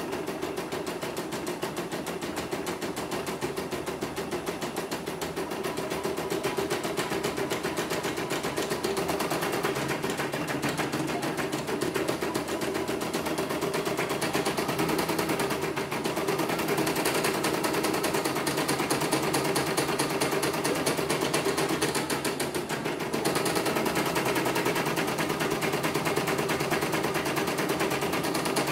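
CNY portable computerised embroidery machine stitching a design in rapid, steady needle strokes while the embroidery arm moves the hoop. It is a test run after repair, with the machine running on without the thread breaking or the machine stopping.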